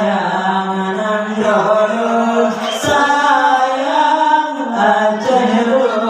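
A man singing a qasidah in long drawn-out phrases, his notes bending up and down.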